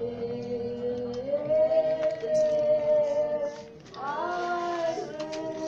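A group of mourners singing unaccompanied in slow, long held notes. The melody steps up about a second in, breaks off briefly near four seconds, then a new phrase starts with a rising note.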